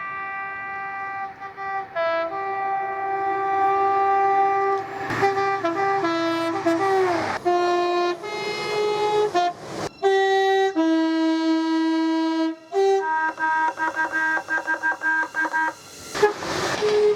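Train air horns sounded as a multi-note tune: a string of held notes at different pitches with a falling slide about seven seconds in, then a run of rapid short toots near the end.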